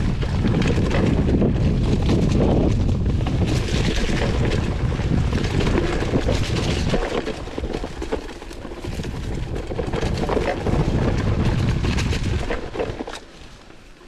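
Wind buffeting a GoPro's microphone on a mountain bike in motion, mixed with tyre noise and the bike rattling and clicking over the trail. It gets much quieter about a second before the end as the bike slows.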